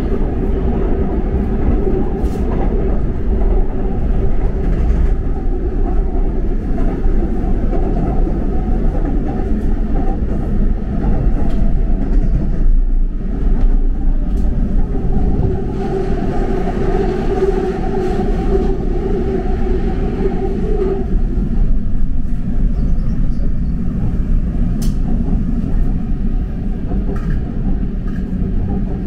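Seoul Line 2 subway train running, heard from inside the car: a steady rumble of wheels on rail with a droning hum. The sound dips briefly about twelve seconds in, then swells with added hiss for several seconds in the middle.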